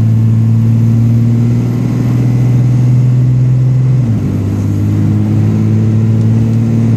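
2005 Dodge Ram 3500's 5.9-litre Cummins common-rail diesel pulling under load with the turbo spooling, carrying the fuel-injection rattle that the owner finds annoying and that forums call typical of common-rail Cummins engines. The engine note dips briefly in pitch about four seconds in.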